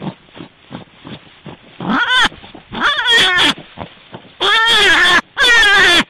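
An animal calling again and again, with faint clicks at first. The calls are pitched cries that rise and fall in pitch; they start about two seconds in and grow longer and louder toward the end.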